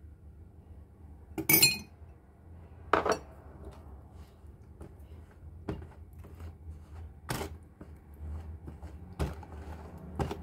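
Metal spoon clinking and scraping against a small glass bowl and a mixing bowl while peanut butter is spooned out and stirred into cake batter. There are a few sharp clinks, the loudest about one and a half seconds in with a short ring, and smaller taps and scrapes between.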